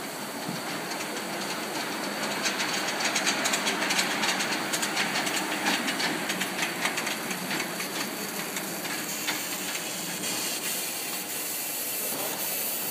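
Polly 6 coal-fired live-steam miniature locomotive running with a steady steam hiss and a quick, regular chuffing. The chuffing is loudest a few seconds in as it passes close by, then dies away to a steady hiss as the engine comes to a stand.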